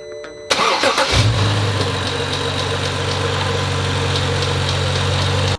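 BMW N55 turbocharged straight-six being started: the starter cranks briefly about half a second in, the engine catches about a second in and settles into a steady idle. This is a test start after a new belt tensioner was fitted to cure a knocking noise.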